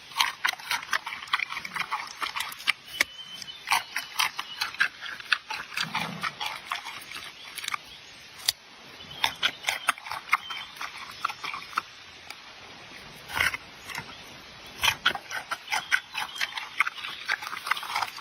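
Giant panda chewing bamboo: irregular, crisp cracks and crunches of stalks splitting between its teeth, in runs broken by pauses of a second or two.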